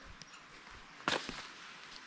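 A single brief, sharp knock about a second in, followed by a few softer ticks, over a faint background.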